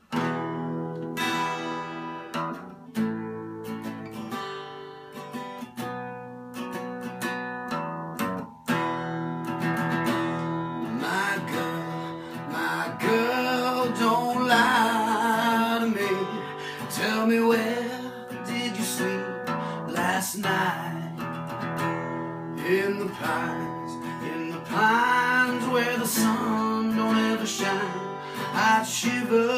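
Acoustic guitar strummed in a slow rhythm, joined about ten seconds in by a man singing.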